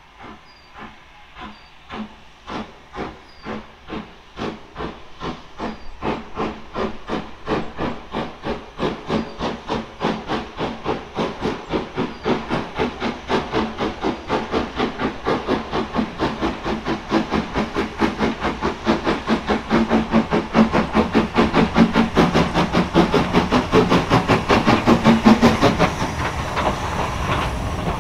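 Steam locomotive 2890 Douglas working hard as it approaches hauling coaches, its exhaust beats in a regular rhythm that grows steadily louder and slightly quicker, from about two to about four a second. Near the end the locomotive draws level and the beats blend into the rumble of the passing train.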